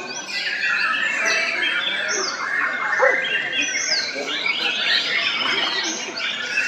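Many caged songbirds, white-rumped shamas (murai batu) among them, singing all at once: a dense, steady chorus of overlapping whistles, chirps and sliding notes with no pause.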